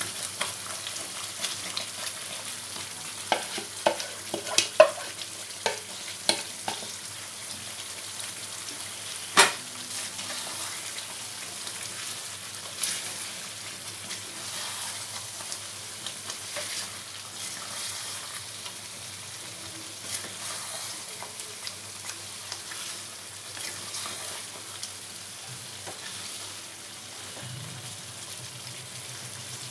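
Masala gravy sizzling in a nonstick pan as boiled baby potatoes are added and stirred in with a spatula. A series of sharp knocks comes in the first ten seconds, the loudest about nine seconds in, with lighter ones later over the steady sizzle.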